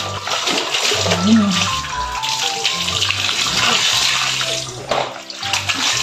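Water running and splashing into a washing machine tub from a hose, under background music.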